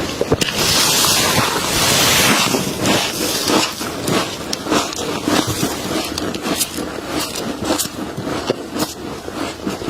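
Close-miked crunching of freezer frost being eaten, a dense run of sharp, crisp crackles. About half a second in there is a hissy rush of scraping for a couple of seconds before the crunching takes over.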